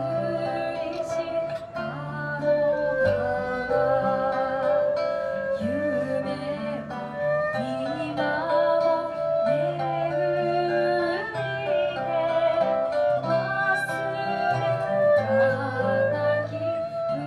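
Live acoustic music: a woman singing a slow melody with a wavering vibrato, accompanied by two acoustic guitars.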